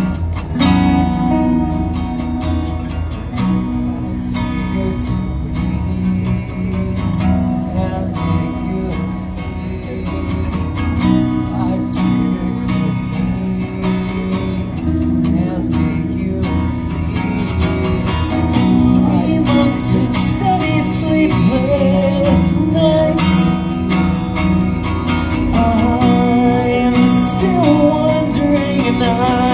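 Electric guitar and acoustic guitar playing a song together live, with dense chords throughout and a melody line wavering in pitch over the second half, growing a little louder toward the end.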